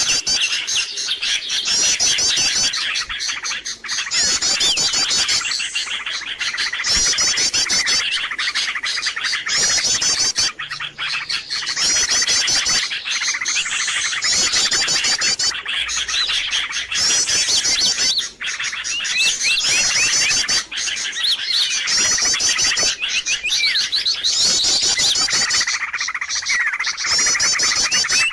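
Bird-lure recording of a noisy crowd of small birds chirping and twittering all at once, with quick high trilled phrases repeating every second or two over continuous chatter.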